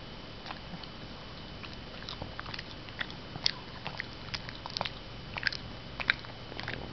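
Shih Tzu crunching Cheerios: a run of irregular, sharp crunches that starts about half a second in and comes thicker and faster from about two seconds in.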